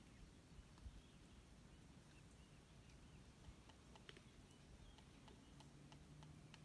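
Near silence: faint outdoor ambience with a few scattered faint ticks and small chirps.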